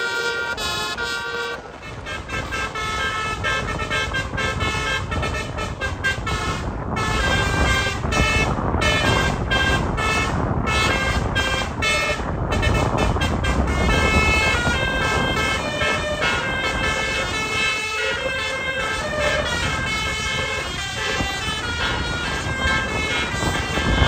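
Basuri telolet horns on convoy vehicles playing quick runs of tooting notes that keep changing pitch, over engine and road noise from the passing cars and pickups.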